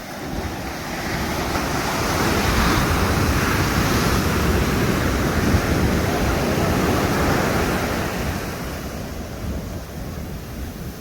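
Pacific Ocean surf: a wave breaking and washing up the beach, swelling about a second in, loudest through the middle, then easing off near the end.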